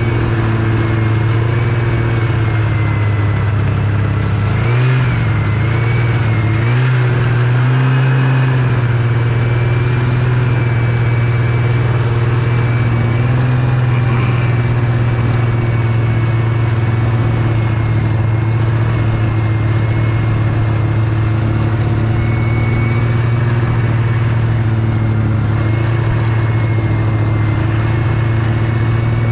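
Yamaha Venture snowmobile engine running steadily while riding. Its note dips briefly and recovers twice, about five and seven seconds in.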